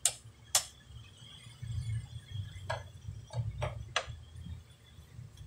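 Sharp clicks from the rotary range switch of a Sunma YX-360TR analog multimeter being turned, two of them in the first half second. About three seconds in come several lighter clicks and taps, over a low rumble.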